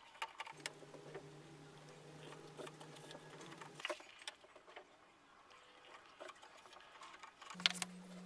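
Faint clicks and taps of thin plywood panels and pencils being handled and pressed into place, with a sharper cluster of clicks near the end. A low steady hum runs under it for the first few seconds and comes back near the end.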